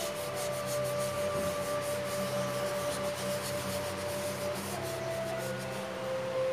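Fingers rubbing and smudging pastel on paper in quick repeated strokes, which die away near the end, over soft background music with long held notes.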